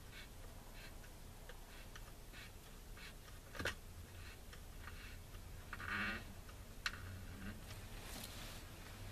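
Light ticks and clicks from hands working a pool equipment lid and its metal clamp ring, with a sharper click about three and a half seconds in and a short squeak near the middle, over a faint low steady hum.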